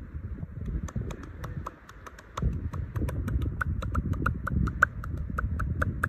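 Rapid, even clicking, about five clicks a second, starting about a second in and growing louder, over a low rumble of wind on the microphone.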